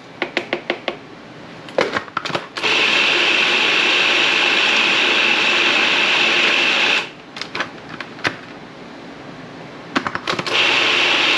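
Food processor motor running as it blends basil pesto: one run of about four seconds, then a second run starting near the end. Quick clicks and knocks come before and between the runs.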